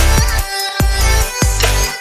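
Electronic dance music with a heavy, pulsing bass and a steady beat.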